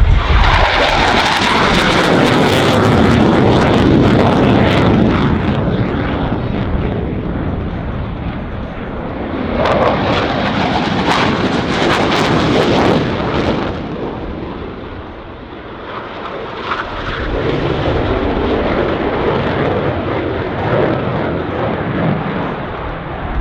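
Large military aircraft flying low past the crowd: engine noise swelling and fading in three waves, loudest over the first few seconds, then building again around ten seconds in and once more near the end.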